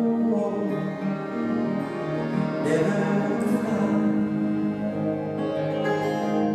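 Live acoustic folk band music: strummed acoustic guitars, held accordion chords and bowed cello playing together.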